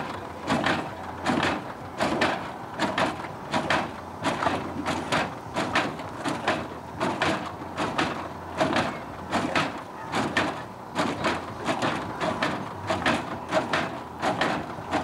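A hydraulic lowrider pickup hopping its front end over and over: rhythmic sharp clacks and slams from the hydraulics and suspension as the truck bounces, about two to three hits a second, often in pairs.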